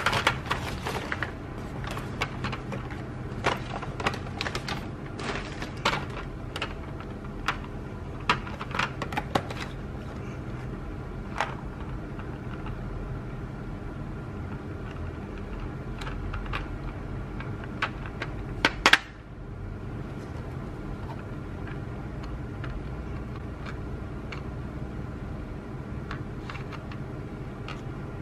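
Art-supply packaging being handled: crinkling of a shopping bag and clicks and taps of a hard plastic pencil case, busiest in the first ten seconds, with two loud sharp clicks about nineteen seconds in. A steady low hum runs underneath.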